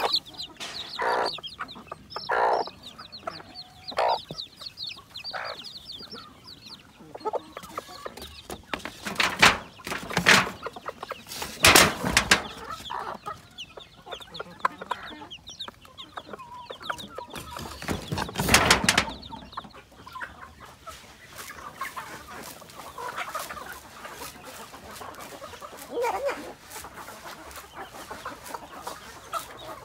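Filipino native chickens clucking, with chicks peeping thinly and rapidly over the first several seconds. A few louder, sharper sounds come near the middle.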